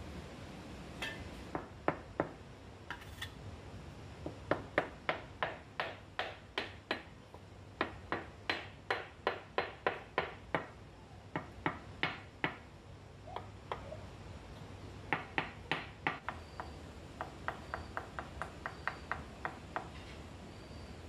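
Brick trowel handle tapping ceramic tiles down into wet mortar: runs of sharp taps, about three a second, quickening near the end.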